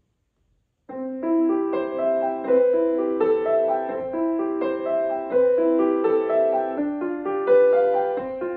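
Grand piano playing a quick succession of overlapping notes in the middle range, starting about a second in.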